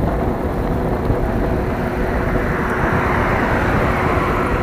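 Wind rumbling on the microphone while riding an e-bike, with the tyre noise of a car on the road alongside swelling past about halfway through.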